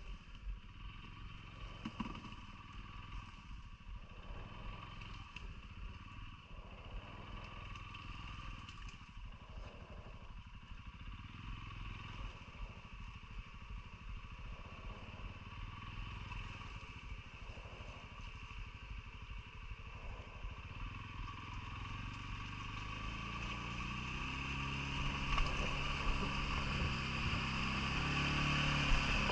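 CFMoto ATV engine running at low speed, getting louder and rising in pitch over the last few seconds as it speeds up.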